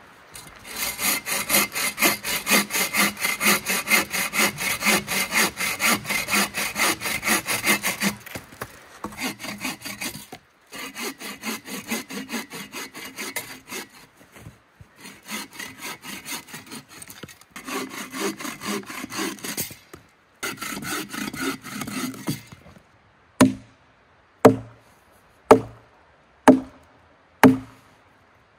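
Firewood being cut with a hand saw: quick, even back-and-forth strokes in several runs with short pauses between them. The sawing is followed near the end by six sharp chopping blows into the wood, about one a second.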